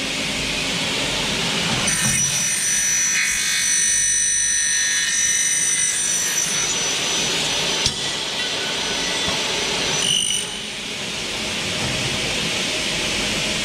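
Faster F99 double-head aluminium cutting saw running and cutting a Xingfa aluminium profile dry, without coolant: a steady machine noise with a high ringing whine as the blades cut for about six seconds, starting about two seconds in. A sharp click near the end of the cut and another short burst a couple of seconds later, after which it runs on a little quieter.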